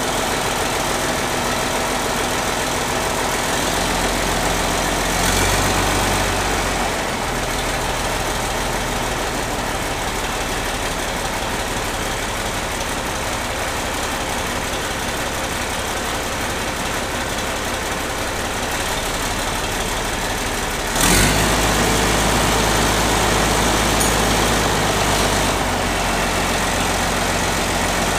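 Case 1570 tractor's turbocharged six-cylinder diesel running at idle. About three-quarters of the way through, the engine note jumps up suddenly and stays louder.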